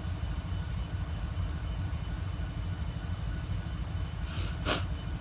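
Wind buffeting the microphone, a steady low rumble, with two brief rustling bursts shortly before the end.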